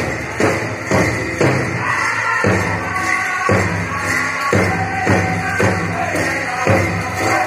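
Pow wow drum and singers: a large drum struck in unison about twice a second, with a group of men singing in chorus over the beat.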